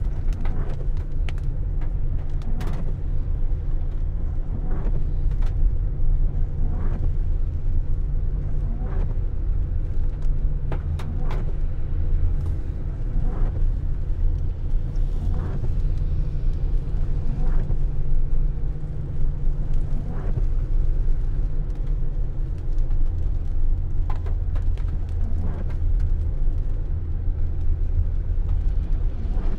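Inside a car driving on a wet road: a steady low rumble of engine and tyres on wet tarmac, with a soft knock from the windscreen wipers about every two seconds.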